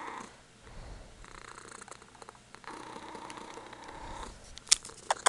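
Ragdoll kitten purring in stretches, a rough rumble that pauses briefly early on. Two sharp clicks come near the end and are the loudest sounds.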